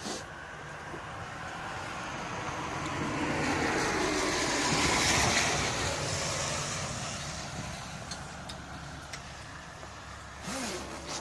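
A road vehicle passing by: a broad rushing noise that swells to a peak about five seconds in, then fades away.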